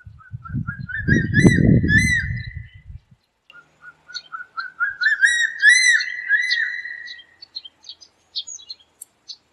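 An eagle calling twice in ringing whistled series: each starts with soft short notes that quicken and swell into loud looping whistles. A few scattered short chirps follow near the end, and a low rumble lies under the first call.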